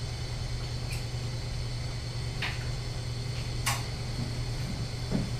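A few sharp computer keyboard and mouse clicks, spread about a second or more apart, over a steady low equipment hum.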